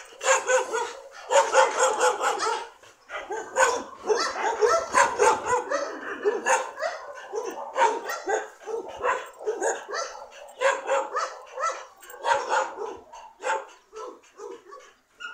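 Dogs barking over and over, in rapid runs of short barks with brief pauses.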